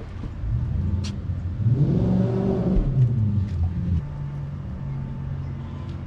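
A car passes on the street, its engine note rising and then falling, loudest about two to three seconds in. A steady low engine hum carries on afterward.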